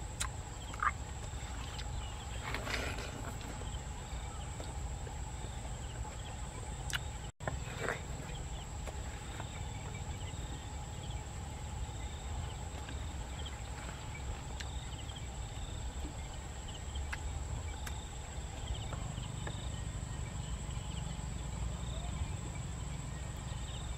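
Rural field ambience: a steady high insect drone over a low steady rumble, with faint short chirps repeating now and then.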